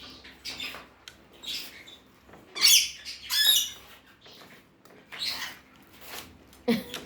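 Parrot squawking in a string of short, harsh calls, the loudest two close together about three seconds in.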